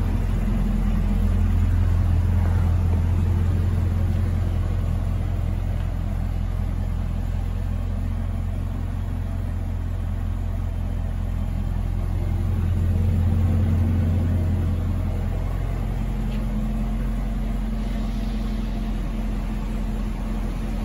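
2019 Chevrolet Camaro ZL1's supercharged 6.2 L V8 idling with a steady low rumble, growing slightly louder twice.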